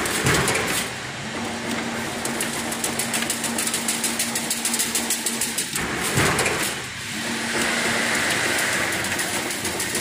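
Double-wire chain link fence machine running as it weaves mesh: a fast, even clatter over a steady motor hum. The sound swells briefly twice, near the start and about six seconds in.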